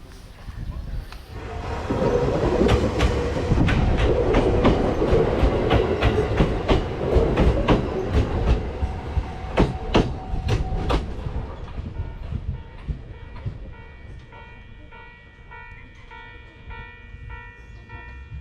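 Joshin Electric Railway train running past, its wheels clicking over the rail joints in a quick series of sharp clacks, loudest for most of the first ten seconds and then fading away. Near the end a repeating ringing of several steady tones comes in.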